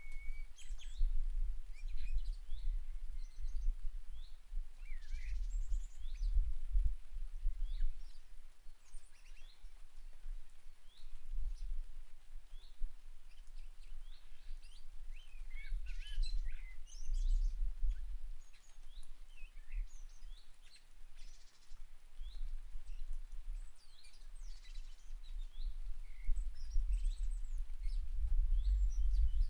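Several garden birds chirping and calling in short, scattered notes, over a low rumble that swells and fades throughout.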